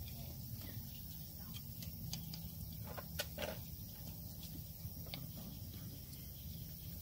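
A knife scraping and paring the tough sole of an elephant's foot in short, scattered strokes, cutting away dead sole around a wound. The loudest strokes come about three seconds in, over a steady low hum.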